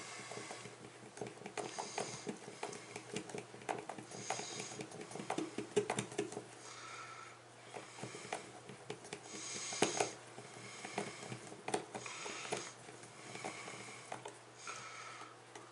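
Wooden stir stick mixing paint in a small plastic cup, scraping and tapping against the cup walls in quick, irregular clicks, with soft breathing swelling every couple of seconds.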